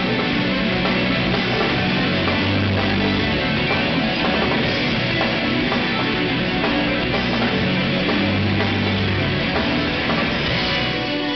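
Live rock band playing a heavy metal instrumental: electric guitars over bass and drums, loud and continuous.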